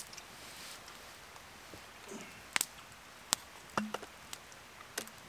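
Quiet crackle of a small wood campfire, about five or six sharp pops and clicks spread through a few seconds, with the soft rustle of a foil ration pouch being eaten from with a spork.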